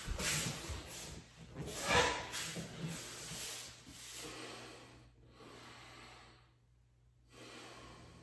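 A person breathing forcefully through a kung fu form: a strong exhale about two seconds in, then softer, spaced breaths that grow fainter.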